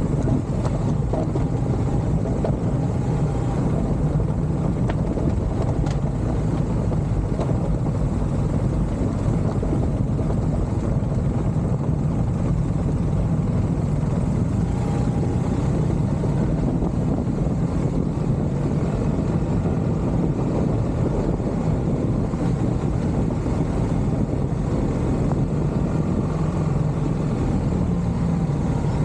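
A motor vehicle running steadily, a constant low engine drone with no change in pace.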